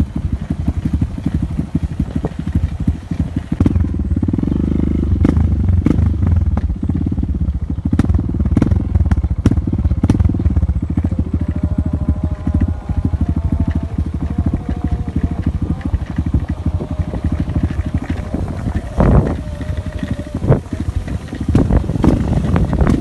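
Motorcycle engine running under way on a dirt track, a dense pulsing low rumble with scattered knocks and rattles from the rough ground.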